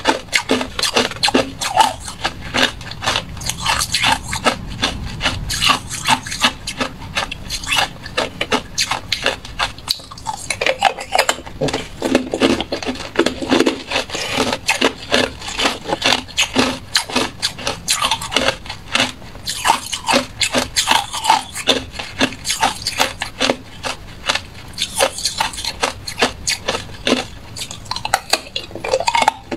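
Hard clear ice cubes being crunched between the teeth: a fast, dense run of sharp cracks and crunches, many a second, with only short lulls.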